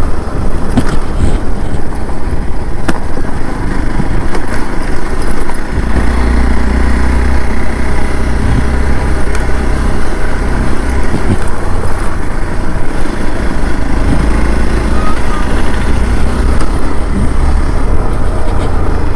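Hero Xpulse 200 4V motorcycle being ridden, its single-cylinder engine running under a heavy, steady rumble of wind on the microphone, the low rumble growing louder about six seconds in.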